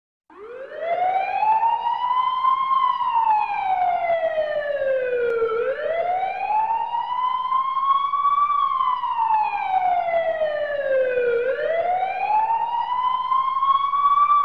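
Police car siren in its wail pattern: one tone slowly rising and then falling in pitch, about six seconds to each cycle, two full cycles and the start of a third.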